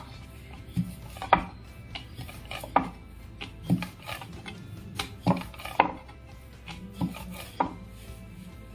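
Rolling pin working dough flat on a rolling board: a soft rubbing sound with about seven sharp wooden knocks, roughly one a second, where the pin and board meet.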